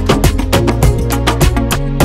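Background music with a fast, steady beat of sharp percussion hits over a bass line.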